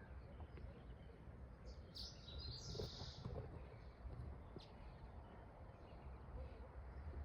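Faint outdoor ambience with a steady low rumble, and a short burst of high bird chirping about two to three seconds in.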